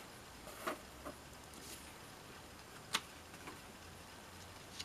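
Faint handling of a paper booklet as its pages are turned: a few short, sharp paper clicks and taps, the sharpest about three seconds in, over a low steady hum.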